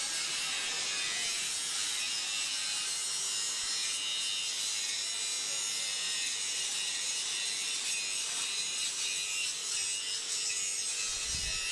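Angle grinder grinding steel, a steady high-pitched grinding that holds at an even level throughout.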